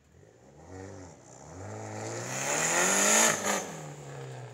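A car accelerating past close by: the engine note climbs and the tyre and road noise build to a peak about three seconds in, then the pitch drops away as it goes by.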